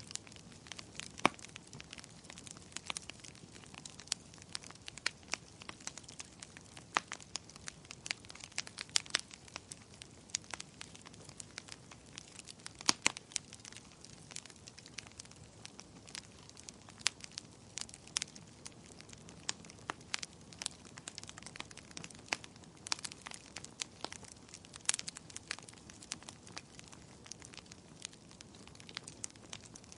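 Wood fire crackling: a steady low hiss with a constant run of irregular sharp pops and snaps, a few much louder than the rest.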